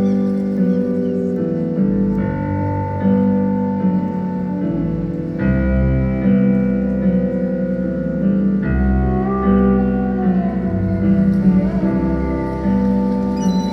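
Live band music, slow and instrumental: sustained piano and keyboard chords over a bass that comes in heavier about five seconds in, with a gliding lead line around the middle.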